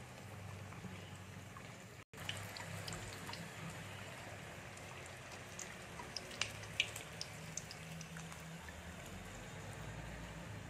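Sweet dough pieces deep-frying in hot oil in a kadai: a low steady sizzle with scattered pops and crackles, more of them about six to seven seconds in.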